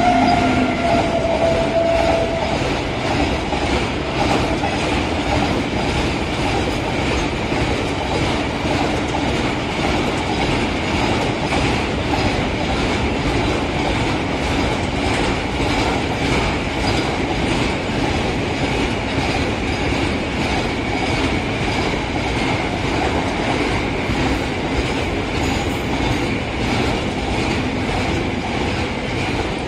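Rake of BCACBM double-deck car-carrier wagons rolling past, the wheels clattering rhythmically over rail joints, with a faint high steady whine throughout. A louder steady tone fades out in the first two seconds.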